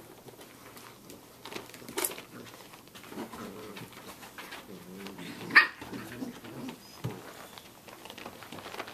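Six-week-old Samoyed puppies play-fighting, with low growls and grumbles and one short, sharp high cry about five and a half seconds in, the loudest moment.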